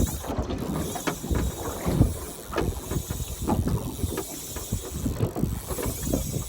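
Wind buffeting the microphone and water lapping against a small boat's hull, with scattered irregular knocks.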